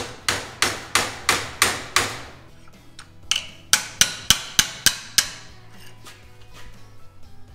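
Claw hammer striking steel bracket tabs with sharp, ringing metal-on-metal blows, hammering them over to bend them into shape. The blows come in two runs of about half a dozen each, roughly three a second, with a short pause between.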